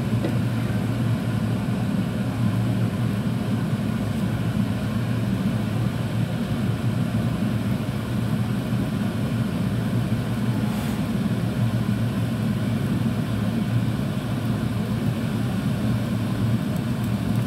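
A steady low motor hum running without change, with no sizzling or scraping standing out above it.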